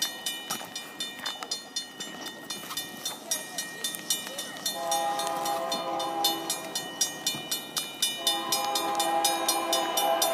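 Railroad crossing bell dinging steadily, about three strikes a second, while an approaching freight locomotive sounds its air horn as a chord: a blast of under two seconds about five seconds in, then a longer one from about eight seconds in.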